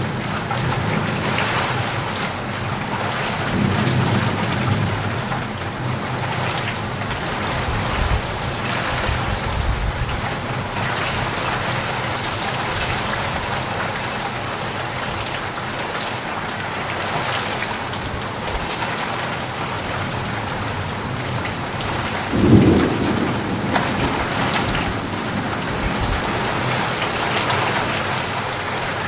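Heavy thunderstorm rain falling steadily, with low rumbles of thunder. The loudest is a short, low boom in the last third.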